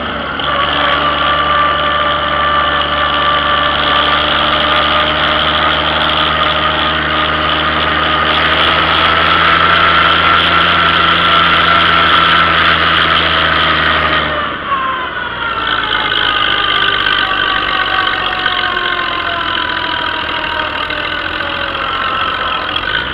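Vintage farm tractor engine running steadily as the tractor drives along. About two-thirds of the way through the engine is throttled back, and its note falls gradually as it slows.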